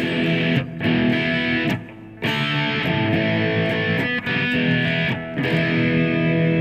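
Distorted electric guitar strumming chords through an amp, each chord left to ring, with a few brief gaps between them.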